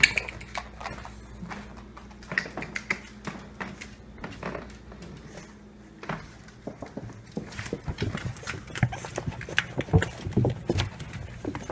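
A pug puppy's claws clicking and tapping on a hardwood floor as it scampers about, in irregular light taps that come faster and louder near the end.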